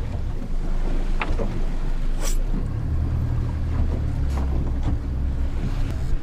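Steady low wind rumble on the microphone aboard a small motorboat, with a couple of sharp clicks about one and two seconds in, made by the bow mooring line and hardware being handled.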